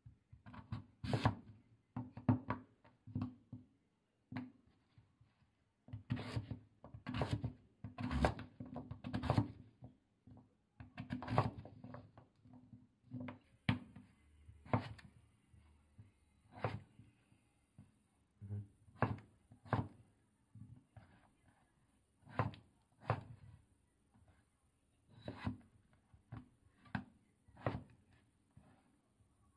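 Kitchen knife cutting sweet potato and peeled potatoes on a wooden cutting board: short knocks of the blade meeting the board, in quick runs at first, then slower single cuts.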